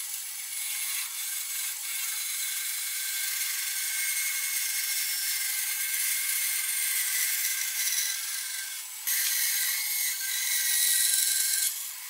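Band saw cutting through a wooden board: a steady hiss of the blade in the wood with a thin whine over it. It dips briefly and comes back louder about nine seconds in, then drops just before the end.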